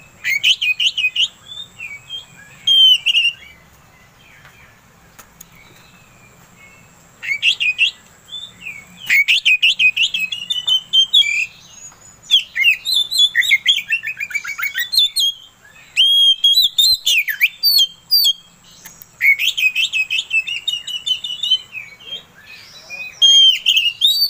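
Oriental magpie-robin (kacer) singing loudly in quick phrases of chirps, whistles and trills. After the first few seconds it pauses for about four seconds, then sings almost without a break. This is the heated, full-voiced song that keepers play as a lure to rouse other magpie-robins.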